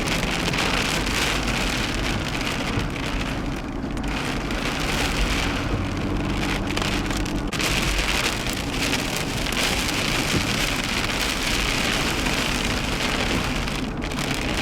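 Heavy rain pelting a moving car in a severe thunderstorm, a steady dense hiss, over the low hum of the engine and road.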